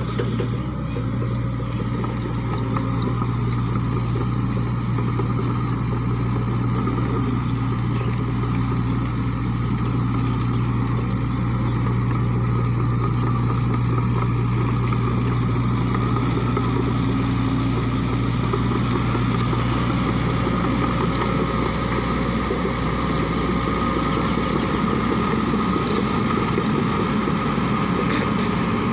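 Sany SY55C mini excavator's diesel engine running steadily as the machine travels on its crawler tracks, a constant low hum.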